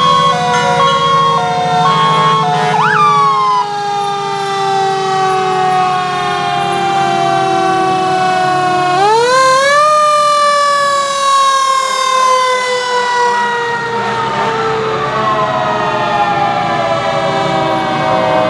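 Fire truck mechanical sirens winding down in long falling wails. One spins up sharply about halfway through and then coasts down again while a second siren falls off behind it. For the first few seconds short repeated horn blasts sound over a low truck engine rumble.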